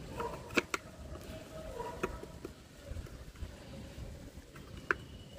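A few light plastic clicks and taps from helmet visor parts being handled and pressed into place, scattered and irregular, the sharpest about half a second in and again near the end.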